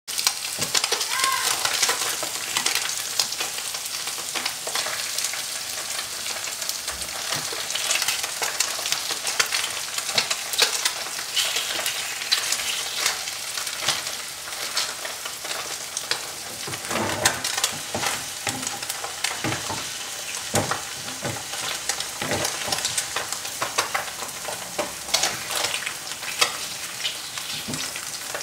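Extra-firm tofu sizzling steadily in hot oil in a stainless steel frying pan. From about halfway through, a wooden spatula scrapes and knocks against the pan as the browning pieces are turned over.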